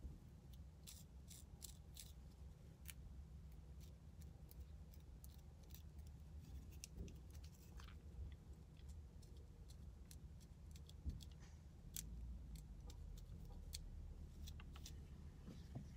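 Faint, irregular scratching clicks of a fine-tooth plastic comb scraping across the scalp to loosen dandruff, over a low steady hum.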